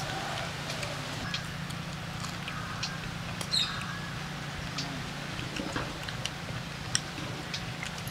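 Outdoor ambience: a few short bird chirps and scattered small clicks over a steady low hum.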